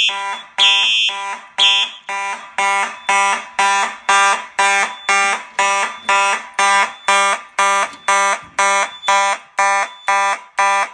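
Simplex fire alarm horns sounding in alarm, a harsh buzzing tone pulsing on and off about twice a second. A higher beep sounds three times over it in the first two seconds. The system is in alarm from a smoke detector tripped with canned test smoke.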